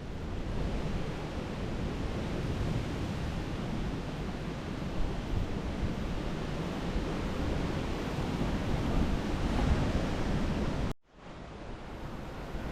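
Ocean surf washing in steadily, with wind buffeting the microphone; it cuts out abruptly near the end and then resumes.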